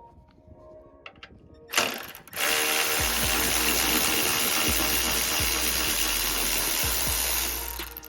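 Ratchet wrench loosening a headlight mounting bolt. There are a few light clicks, then a sharp burst, then a loud steady run of ratcheting from about two and a half seconds in until it dies away near the end.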